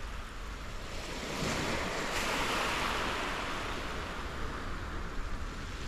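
Sea surf washing onto the beach. A wave swells in about a second and a half in and slowly eases off.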